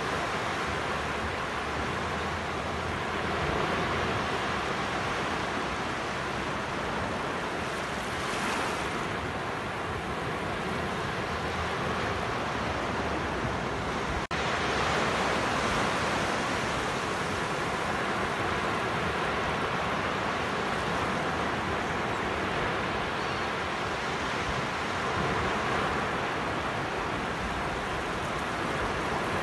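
Small waves breaking and washing up a sandy beach: a steady rush of surf that swells and eases every few seconds, with a brief dropout about halfway through.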